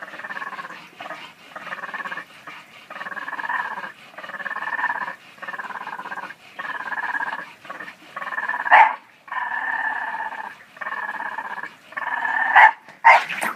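Boston terriers play-growling in a run of raspy grumbles with short breaks between them. A sharp bark comes about nine seconds in and two more near the end.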